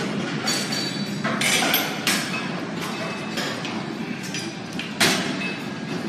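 Metal clanks and knocks from gym equipment: a few sharp strikes at irregular intervals, the loudest about five seconds in, over a steady hiss of room noise.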